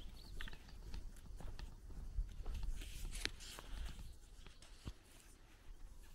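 Footsteps on a sandy dirt lane, a run of short irregular scuffs and knocks that grow sparser and quieter in the last couple of seconds.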